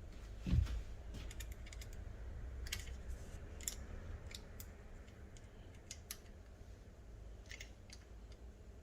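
Small metallic clicks and ticks, irregular and scattered, from a hand tool working the handlebar bolts of an electric bike. There is one dull thump about half a second in.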